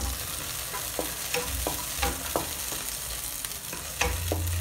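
Chopped garlic sizzling in hot oil in a wok, with chopsticks stirring and knocking against the pan in several short clicks. A low hum grows louder near the end.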